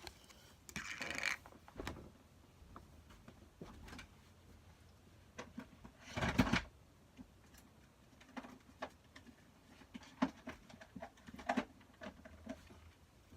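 Scattered small knocks, clicks and rustles of things being moved and handled in a small room, with a louder noisy thump or rustle about six seconds in.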